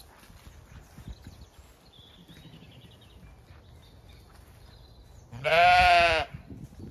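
A Zwartbles sheep bleating once, a single wavering bleat about a second long, about five seconds in.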